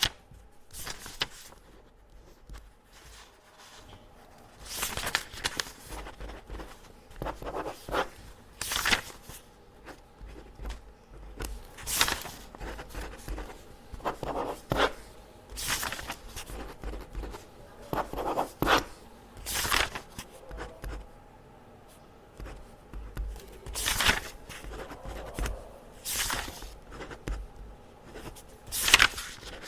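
Pen marking test papers: quick, scratchy strokes on paper at irregular intervals, one to three seconds apart, with paper rustling between them.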